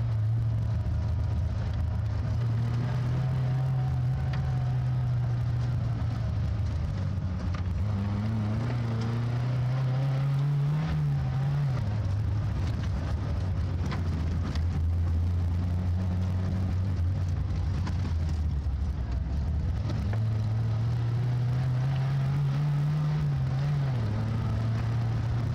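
Austin Maxi's four-cylinder engine heard from inside the cabin, driven hard, its pitch climbing slowly and then dropping suddenly, twice: about eleven seconds in and again near the end.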